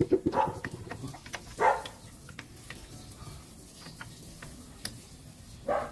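A dog barks a few times, about half a second in, near the two-second mark and again near the end. Light metallic clicks and taps come from new scooter brake shoes being worked onto the rear brake plate.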